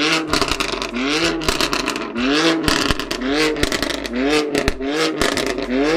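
Car engine blipped again and again, each rev a short rise in pitch that quickly falls back, with sharp exhaust pops and crackles between the revs.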